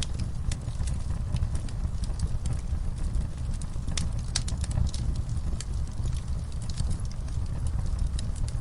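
Wood fire burning in a fireplace: irregular sharp crackles and pops over a steady low rumble, with several pops close together around the middle.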